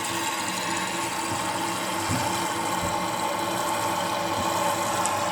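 Water running through a toilet's fill valve into the tank in a steady hiss. It grows slowly louder as the supply valve is opened further.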